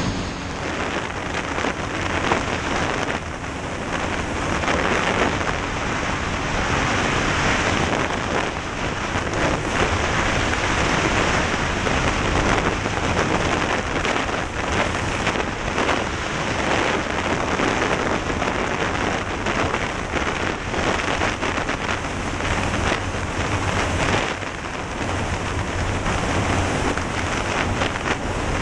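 Heavy wind rush buffeting a helmet-mounted camera's microphone while riding at speed on a dirt track, with the vehicle's engine mostly buried under it.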